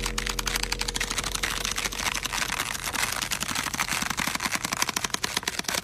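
Dot-matrix printer printing a page: a fast, even rattle of print-head strikes that stops near the end.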